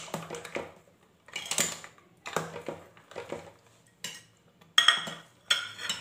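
Steel ladle scraping and clinking against a stainless-steel pot while stirring sugar drops into thick boiled milk: irregular metal strokes about once a second, the loudest pair near five seconds in.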